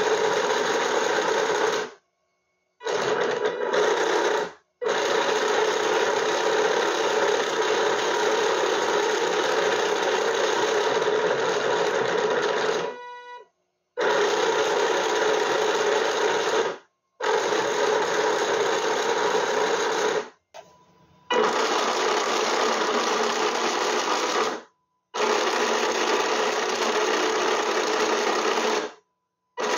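The electric drive system of a 3D-printed RC M1A2 Abrams tank running steadily, a dense motor whir with the plastic tracks clattering around the sprocket and road wheels. The sound cuts off abruptly several times and picks up again.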